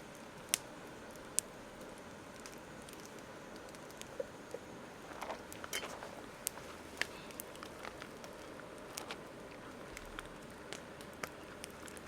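Campfire crackling: irregular sharp pops and snaps over a low steady hiss, with two louder pops in the first second and a half.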